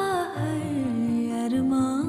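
Background song: a voice holds a long sung note that slides down in pitch, then steadies, over soft instrumental backing.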